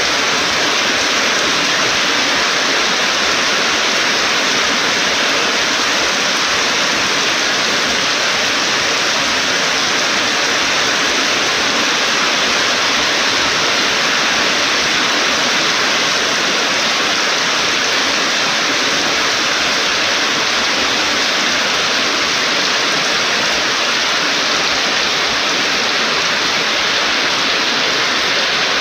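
Heavy storm rain pouring down in a steady, unbroken hiss.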